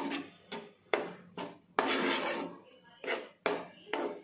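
Metal spatula scraping and stirring a crumbly besan (gram flour) mixture around a nonstick pan, in quick irregular strokes about one to two a second, with one longer scrape about two seconds in.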